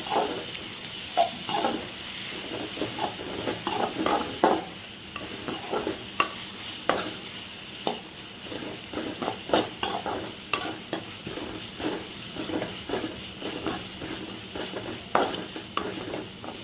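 Metal spoon stirring and scraping through onions, green chillies and ginger-garlic paste frying in ghee in a metal pan: a steady sizzle under irregular scraping strokes against the pan. This is the paste being sautéed until its raw smell goes.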